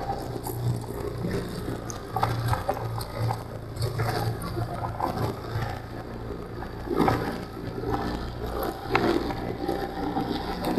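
Snowmobile engine running at a steady cruise while riding over packed snow, with scattered knocks and rattles.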